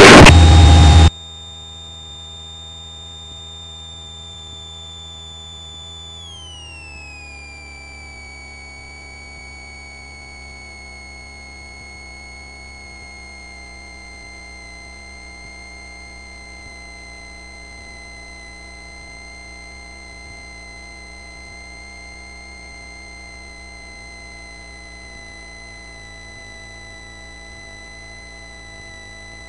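Light aircraft engine heard as a steady high whine of several pure tones. About six seconds in, the pitch slides down over two seconds and settles lower as the engine's revs drop. A loud noise cuts off abruptly about a second in.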